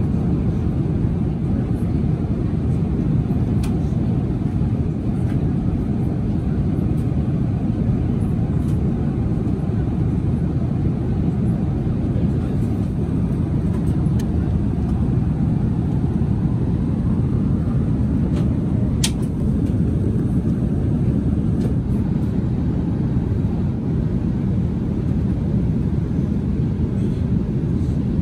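Steady roar of airflow and engines inside an Airbus A380's passenger cabin in cruise, a deep, even noise with a couple of faint clicks.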